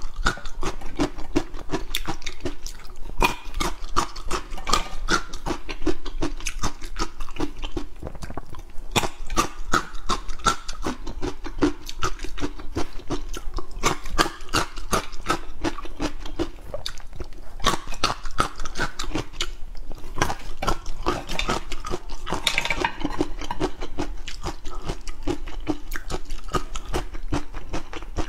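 A person chewing food close to a clip-on microphone: a dense, unbroken run of crunching and wet mouth clicks, over a steady low hum.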